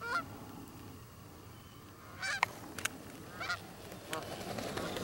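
Canada geese honking in scattered short calls as a flock comes in to land. Two sharp clicks come a little past the middle.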